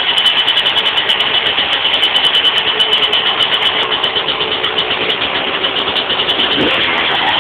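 2001 Yamaha YZ125's two-stroke single-cylinder engine running at idle with a fast, even pulsing; the revs rise briefly near the end.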